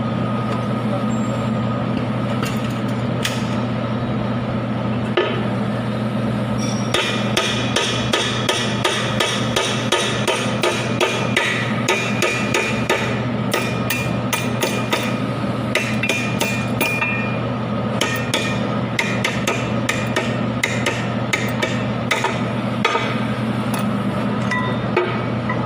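Hammer tapping repeatedly on metal, with a short ringing tone after each blow. The taps come in quick, irregular runs, starting about a quarter of the way in, over a steady low hum.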